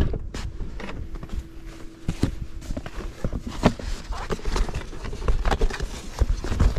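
Irregular knocks, taps and rustling, as of things being handled or moved about, over a faint steady hum.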